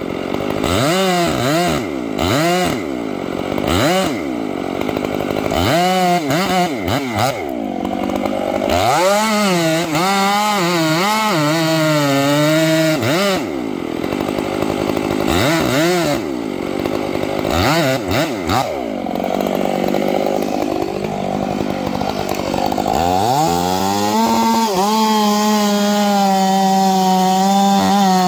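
Chainsaw cutting into a large redwood trunk, its engine pitch repeatedly rising and dropping as the bar is worked in the cut. Near the end it climbs to full speed and holds a steady high pitch.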